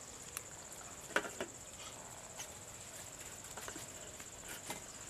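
Steady high-pitched drone of insects in the surrounding vegetation, with a few light clicks and knocks, the loudest about a second in.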